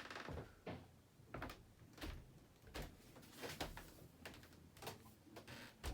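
Monte Carlo Vios ceiling fan coasting down after being switched off, giving faint, short clicks or knocks about every 0.7 s.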